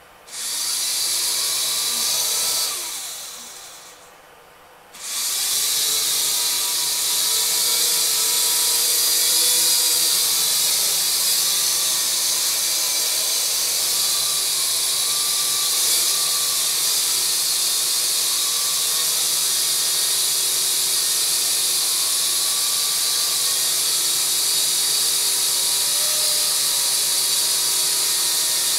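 Small electric motors and propellers of an AVATAR YD-711 toy quadcopter whining. They spin up, wind down and stop about three seconds in, then spin up again about five seconds in and run steadily, with the pitch wavering slightly, while the quadcopter stays on the floor without taking off.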